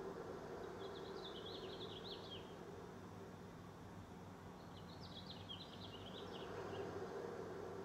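Faint high chirping in two short runs, about a second in and again about five seconds in, over a steady low hum.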